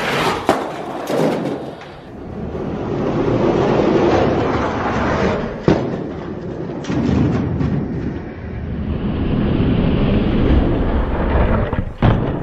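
Hot Wheels die-cast toy monster trucks rolling down an orange plastic track: a continuous rumble that swells and fades, with a few sharp clacks as the trucks knock against the track.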